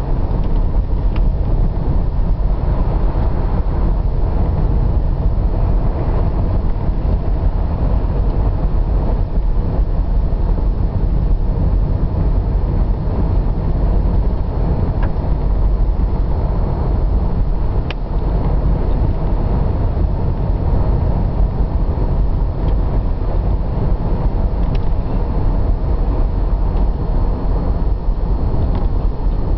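Steady low rumble of a car driving along a paved road, engine and tyre noise heard from inside the cabin, with a few faint clicks now and then.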